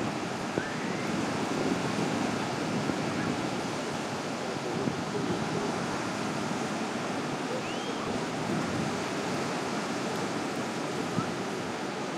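Lake Michigan surf breaking steadily on the shore, with wind buffeting the microphone.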